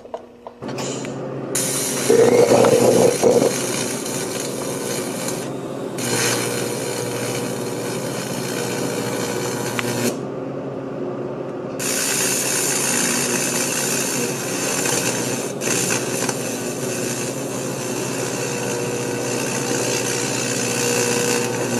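AC TIG welding arc buzzing steadily on a thin aluminum beverage can. The arc breaks off for about two seconds near the middle, and for a moment twice more.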